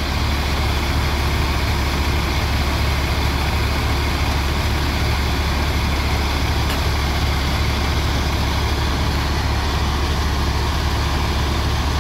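Intercity coach's diesel engine idling steadily: an even, deep hum that does not change.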